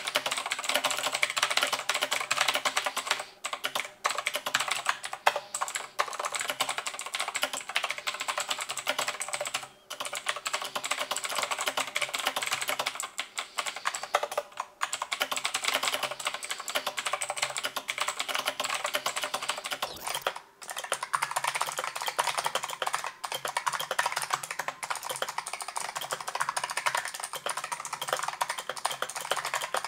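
Fast, continuous typing on Razer mechanical keyboards with clicky switches, Razer Green and Razer Purple, each keystroke a sharp click. A short break about two-thirds of the way through, after which the clicks take on a different character, the change from one switch type to the other.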